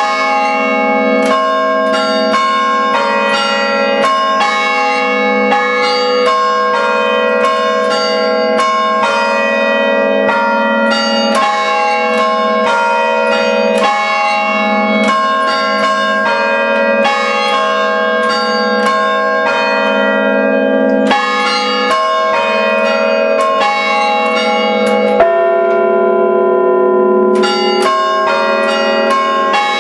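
Five-bell church tower chime rung by hand through rope pulls: a rapid, rhythmic run of bell strikes, the tones ringing on over one another. About 25 seconds in the strikes pause briefly while the bells hum on, then resume.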